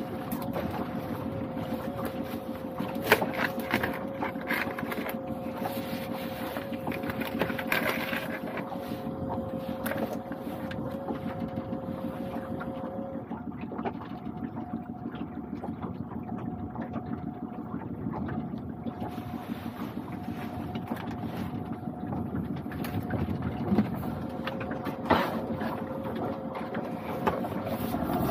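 Small fishing boat's outboard motor idling with a steady hum under water slapping the hull and some wind. A few sharp knocks from the lobster pot being handled, the loudest about three seconds in.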